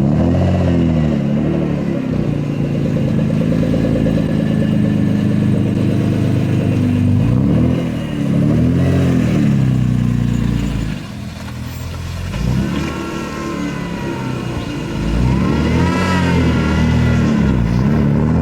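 Turbocharged BMW E36 M3 straight-six engine running under way, its pitch rising and falling several times as the car accelerates and shifts, easing off about eleven seconds in. A higher whistling tone rises and falls a few times near the end.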